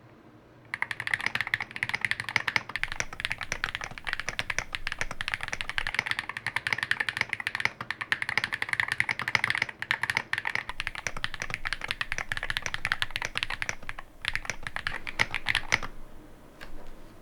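Fast, continuous typing on a ChilKey SLICE68 HE, a Hall-effect magnetic-switch mechanical keyboard: a rapid patter of keystroke clicks that starts about a second in, pauses briefly near the end and stops shortly before the end.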